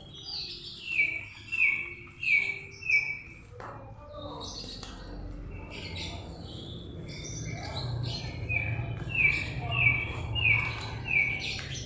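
A songbird singing a phrase of four short, clear, slightly falling whistled notes, twice, with a pause of several seconds between the phrases. Scattered rustling and clicks are heard in between.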